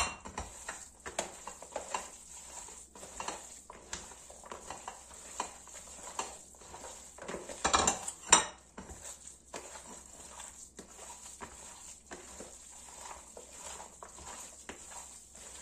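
Hands kneading a lahmacun topping of minced meat, chopped tomato, onion and oil in a large plastic bowl: an irregular run of soft, short mixing sounds, with a couple of louder knocks about eight seconds in.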